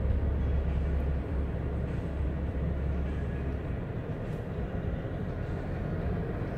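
Steady low rumble inside a car's cabin as it sits in stopped traffic, mostly the idling engine and cabin hum, easing a little just past halfway.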